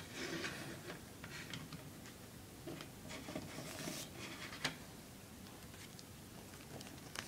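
A CD and its packaging being handled: scattered light clicks and taps with brief rustling, a sharper click about four and a half seconds in and another near the end.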